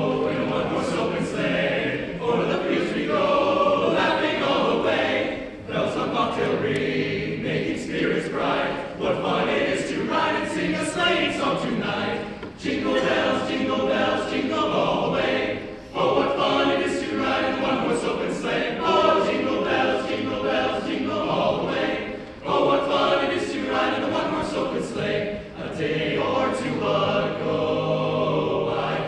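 A men's chorus singing a Christmas song a cappella, with brief breaks between phrases every few seconds.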